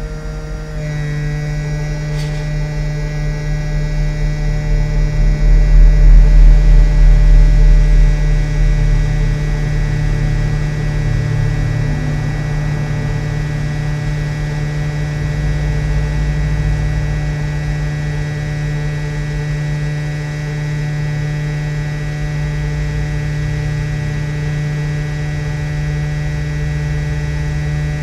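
Quick 857D hot air rework station blowing steadily while heating solder on a phone circuit board, its fan motor giving a steady hum. It swells louder for a few seconds about five seconds in, then settles.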